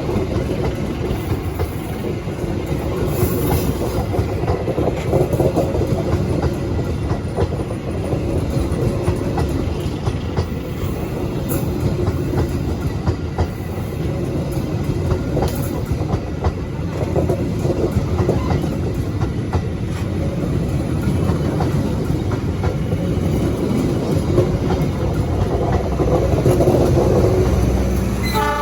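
Train passing close by, its wheels clattering over the rail joints in a steady, loud run of clicks over a rumble.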